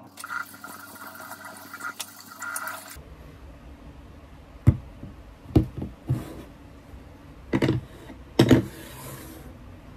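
Water running in a tiled bathroom that stops abruptly about three seconds in, followed by a series of sharp knocks as a mug and plastic skincare bottles are set down on a desk.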